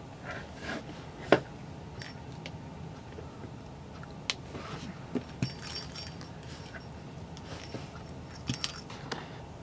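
Small jingle bell inside a crocheted cat-toy ball jingling in short shakes, twice, near the middle and near the end, while the toys are handled, among light handling clicks. A sharp tap about a second in is the loudest sound.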